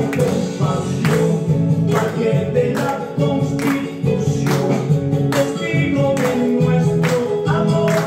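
Tunantada dance music: singing voices over instruments, with a steady beat.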